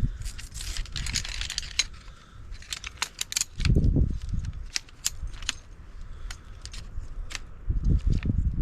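Metal frame poles of a lightweight folding hiking chair clicking and clinking as they are fitted together, with fabric rustling in the first couple of seconds and dull thumps about four seconds in and again near the end.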